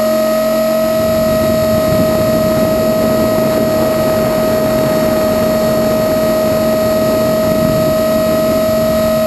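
Blade 450 X electric RC helicopter heard from its onboard camera: the brushless motor and drive gears give a steady high whine, with the rotor's rushing air noise underneath. The whine rises slightly in pitch and the rushing gets louder about a second in.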